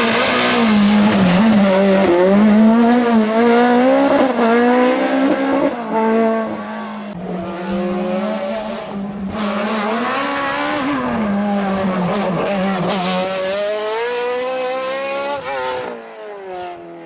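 Racing car engine at high revs, its pitch rising and dropping repeatedly with gear changes and lifts off the throttle, then fading away near the end.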